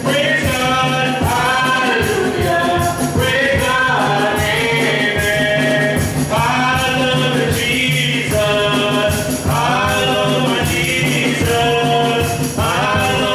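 Live gospel worship song: voices singing together over conga drums and a drum kit.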